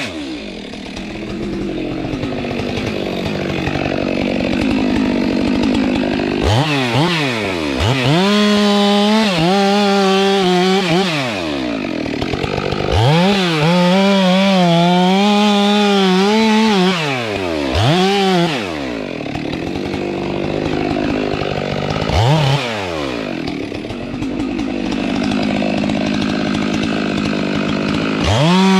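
Stihl MS 462 two-stroke chainsaw cutting into a kapok tree at full throttle. Its engine note sags and roughens while the chain is in the wood, then climbs back to a clean high scream several times between cuts.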